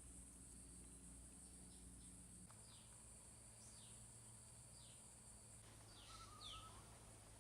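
Faint outdoor ambience: a bird gives short, high, downward-sliding chirps about once a second, over a steady high-pitched hiss and a low hum.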